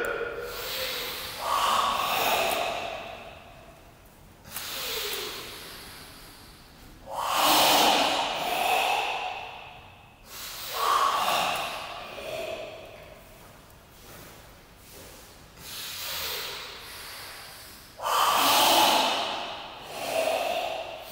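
Karate practitioners doing forceful Goju-ryu kata breathing: long, audible breaths drawn in and pushed out with a hiss, in a slow rhythm of one every two to three seconds.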